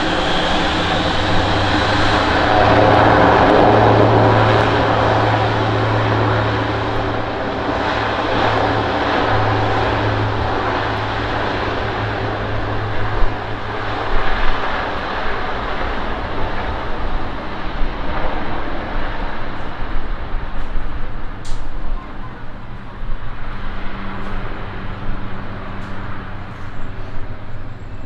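Airbus A400M's four turboprop engines and propellers running on the runway: a loud steady low drone with rushing noise above it, loudest in the first few seconds and then slowly fading as the aircraft moves away.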